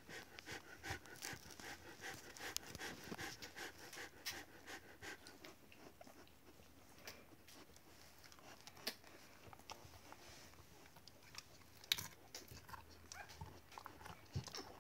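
Akita Inu panting for the first few seconds, then gnawing and crunching a thin bread stick, with scattered sharp crunches and clicks of teeth on the stick.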